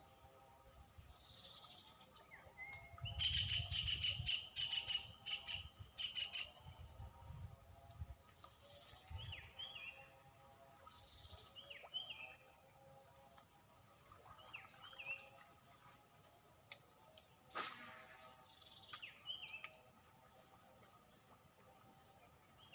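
Outdoor insect and bird chorus: a steady high drone of crickets or cicadas, a short chirp repeating about every second and a half, and a bird giving quick paired notes every few seconds. A run of knocks and rustling handling noise comes between about 3 and 9 s, and there is one sharp click later.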